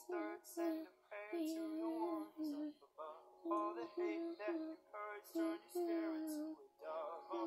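A young girl singing along to a pop song playing from a tablet's speaker, the melody rising and falling in short phrases over steady held notes from the music.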